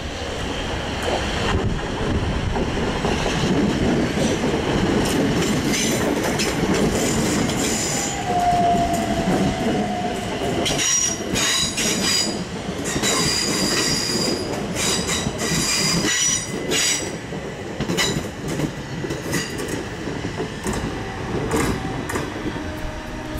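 Southeastern electric multiple unit running along the curved track past the platform: a steady rumble of wheels on rail, then, in the middle, a run of high-pitched wheel squeals and clicks over the rail joints as the carriages go by.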